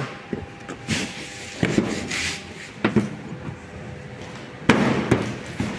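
Hands pressing a car's plastic front bumper cover into place beside the headlight: a few light knocks and clicks as it seats, rubbing in between, and a louder scrape near the end.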